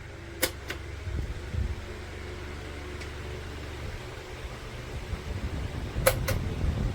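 Wall-mounted electric fan running with a steady low hum and a rumble of moving air on the microphone. Two pairs of sharp clicks, one about half a second in and one near the end.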